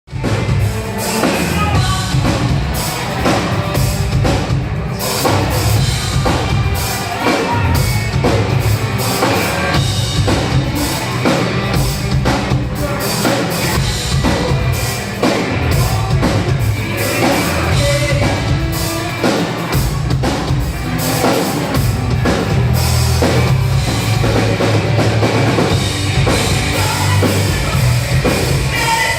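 A rock band playing live and loud, with a pounding drum kit under the band, and singing.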